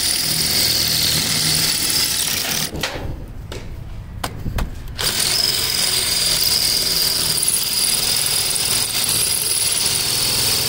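Foster 21 V cordless drill running at speed, its bit boring into a soft porous stone block. It stops about three seconds in, with a few clicks during the pause, and starts drilling again about two seconds later.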